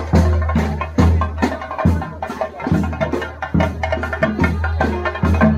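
A procession drum ensemble of laced cylindrical drums beaten with sticks, playing loud, fast, sharp strokes over a deep beat that falls roughly once a second.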